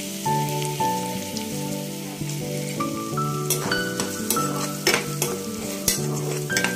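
Freshly chopped raw onions sizzling in hot oil in a kadai at the start of frying. A steel spatula scrapes and clicks against the pan as they are stirred, with the clicks coming more often in the second half.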